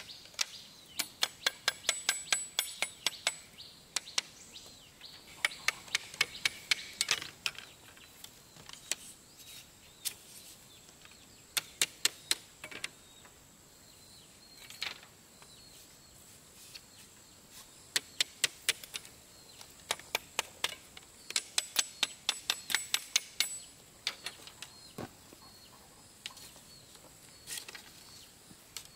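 Bursts of quick, sharp taps, several a second, each run lasting a second or two with pauses between.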